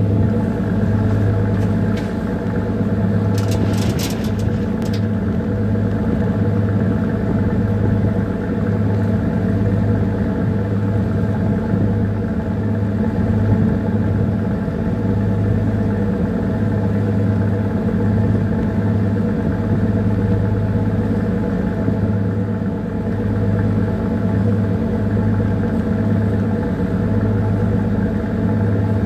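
Steady drone of a bunker tanker's diesel engine running while the ship is under way, a deep hum with a constant pitch. A brief rattle sounds about four seconds in.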